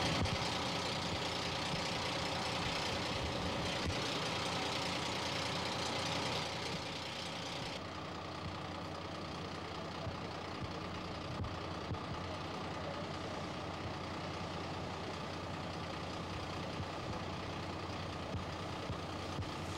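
An engine running steadily at idle, a constant hum with a haze of noise above it. About eight seconds in, the high hiss drops away and the engine sound goes on a little lower in level.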